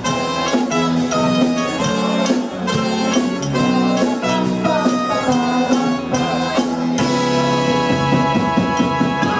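Live band playing an instrumental passage on electric guitar, bass guitar and drum kit, with a steady beat and no singing.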